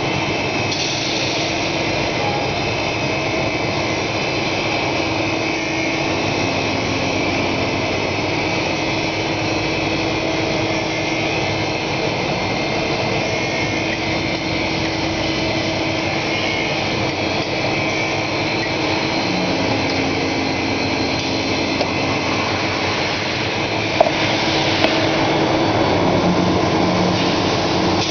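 Steady hum and hiss of running shop machinery, with a couple of sharp metallic clicks near the end.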